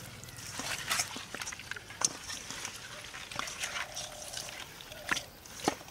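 Raw carp pieces being rubbed with turmeric powder by hand in a steel bowl: wet squelching and irregular clicks, with a few sharper knocks as pieces strike the bowl. A faint drawn-out tone sounds in the background around the middle.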